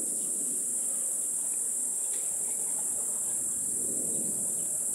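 Steady, high-pitched insect chorus, a continuous shrill drone that does not change.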